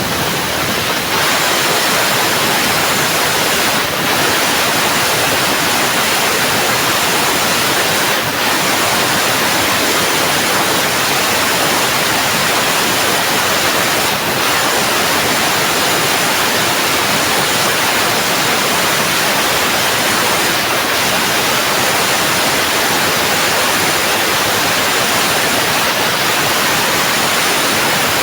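CNC fiber laser cutting head bevel-cutting steel, giving a loud, steady hiss of assist gas and cutting spray, with faint brief changes every four to six seconds.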